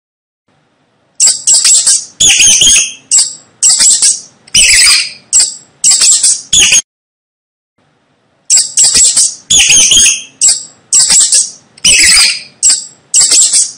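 Mice squeaking: two runs of loud, rapid, high-pitched squeaks, each a string of short chirps, with a pause of about a second and a half between them.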